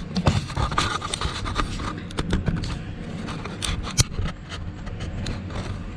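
Handling noise close to the microphone as the camera is set in place on a workbench: irregular clicks, knocks and scraping, with a sharp knock about four seconds in.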